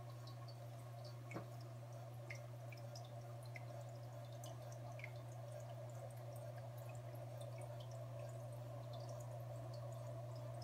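Hang-on-back aquarium power filter running: a steady low motor hum with water trickling and dripping back into the tank. One soft tap about a second and a half in.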